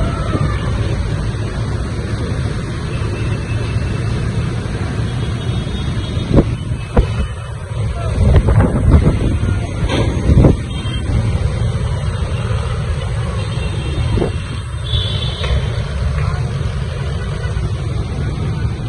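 Storm wind buffeting the microphone in a steady heavy rumble, with road traffic underneath and a few sharp gusts or knocks around the middle.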